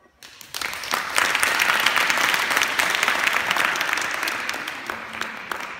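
Audience clapping: it breaks out just after the start, swells within a second, and slowly dies away near the end.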